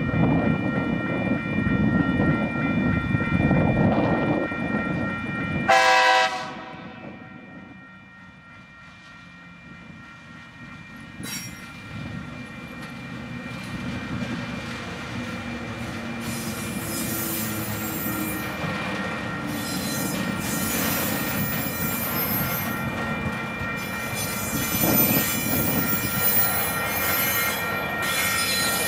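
Railway level-crossing bell ringing steadily as a TasRail freight train, led by two TR-class diesel locomotives, approaches and crosses. A heavy low rumble fills the first few seconds, and a short loud train horn blast sounds about six seconds in. The locomotives then rumble past and the container wagons roll over the crossing, with high wheel squeal in the second half.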